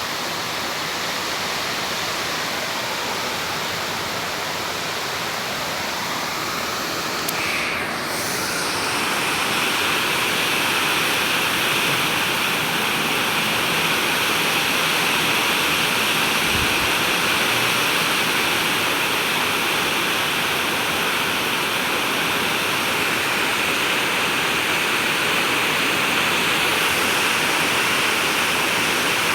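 Heavy rain pouring down steadily. About eight seconds in the sound briefly shifts and then continues a little louder.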